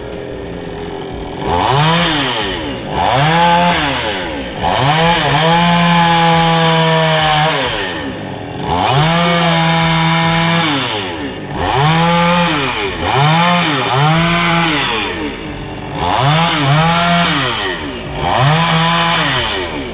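Petrol chainsaw engine revved up to full speed and let back down to idle over and over, sometimes holding full speed for a second or more before dropping back.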